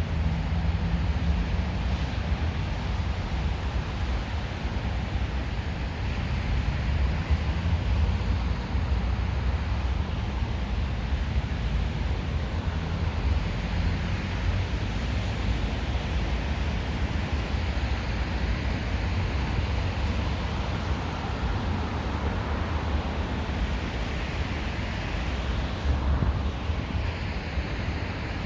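Wind buffeting the microphone in a snowstorm: a steady low rumble with a hiss of blowing wind over it.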